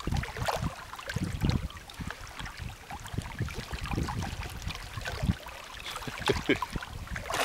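Shallow water sloshing and splashing around a chocolate Labrador wading at the shore and a small hooked fish thrashing at the surface, over an uneven low rumble.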